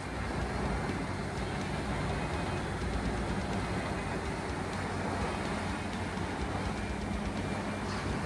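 CBI 6400 CT horizontal grinder running steadily under load as it grinds wood waste, its 1050-horsepower engine giving a low, even hum under a constant rushing noise.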